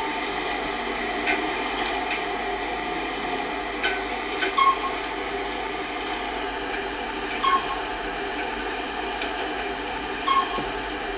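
Otis Series 4 lift running: a steady hum and rush with a few short clicks, and a short beep about every three seconds.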